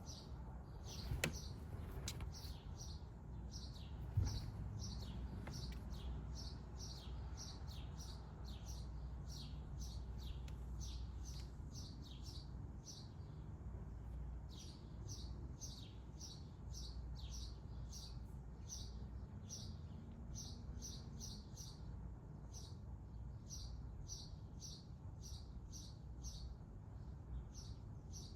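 A small bird chirping over and over in short, high, downward-sweeping chirps, about two to three a second. Two sharp taps stand out in the first few seconds, over a low steady rumble.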